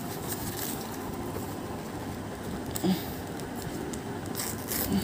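Faint rustling and crinkling of a printed plastic packaging sleeve as it is handled around a rolled EVA foam yoga mat, with a few light crackles over a steady low hiss.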